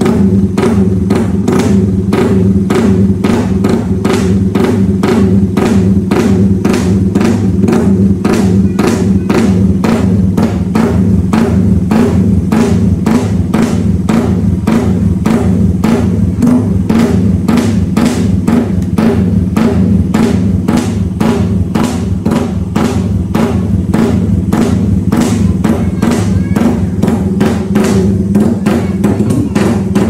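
Music with a steady, fast drum beat over a sustained bass line.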